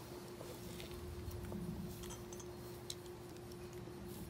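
Faint steady hum with a few light, faint clicks partway through.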